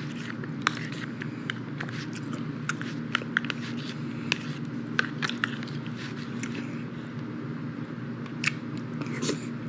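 Metal fork clicking and scraping against a black plastic microwave tray while rice is scooped up and eaten, with scattered small mouth clicks of chewing. A steady low hum runs underneath.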